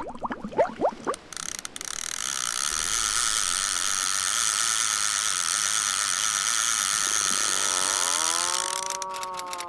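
Animated-intro sound effects: a few quick rising zips, then a fishing reel's ratchet buzzing steadily for about seven seconds as the line is reeled in. A tone that rises and falls comes in over its end as the logo appears.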